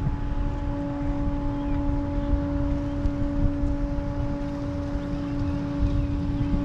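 A steady, unchanging single-pitched hum with overtones, over low wind rumble on the microphone; the hum cuts off suddenly at the end.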